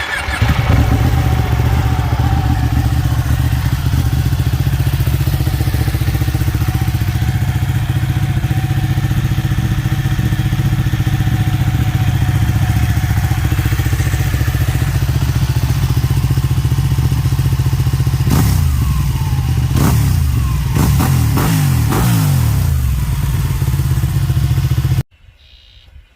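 Ducati 1199 Panigale's 1198 cc L-twin idling through an aftermarket exhaust. It blips the throttle in a series of quick revs about 18 seconds in, then the sound cuts off suddenly near the end.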